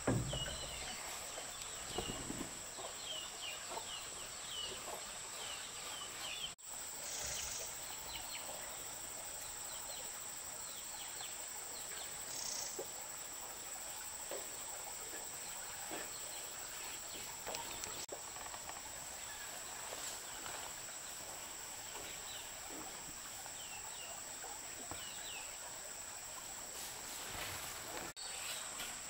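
Outdoor ambience of insects trilling in a steady high drone, with short bird chirps in the first few seconds and again near the end. The sound breaks off for an instant twice.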